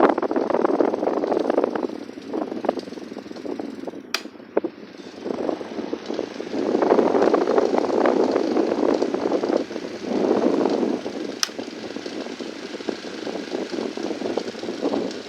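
Mallory Boreal electric table fan running with no guards or motor cover, its air noise rushing and surging unevenly, with a couple of sharp clicks.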